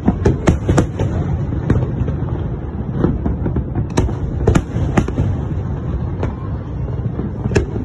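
Aerial firework shells bursting overhead: a quick volley of sharp bangs in the first second, then single booms every half second to a second, over a steady low rumble from the continuing barrage.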